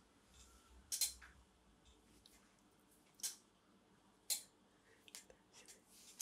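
A quiet room with a few short, sharp clicks now and then, more of them and fainter near the end.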